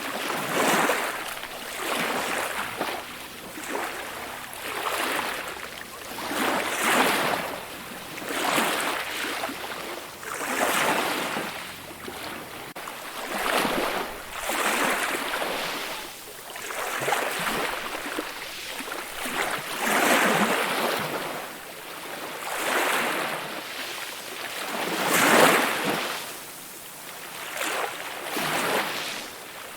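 Ocean waves washing onto the shore, the surf swelling and falling back every two seconds or so.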